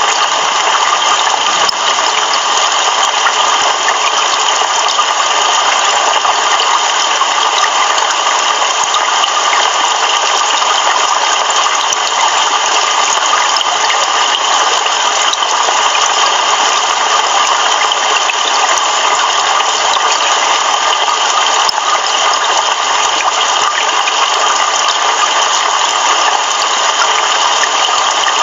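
Heavy rain falling steadily, an even loud hiss with no thunder.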